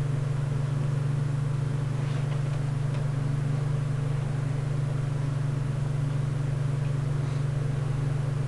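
A steady low hum that does not change, with a few faint light taps.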